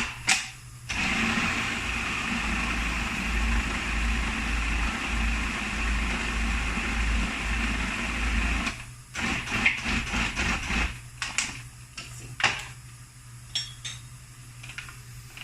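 Food processor running steadily for about eight seconds, pureeing a thick chickpea brownie batter, then stopping. A run of clicks and knocks follows.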